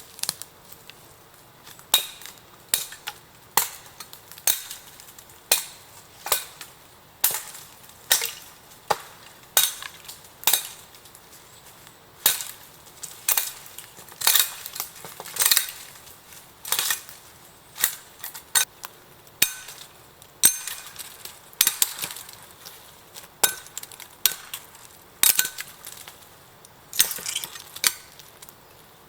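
A long series of sharp knocking blows, roughly one to two a second with brief pauses, typical of chopping or hammering at camp.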